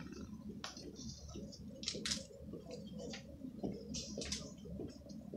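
Scattered light clicks and brief hissing rustles over a steady low hum, the loudest rustles about two seconds in and again near the end.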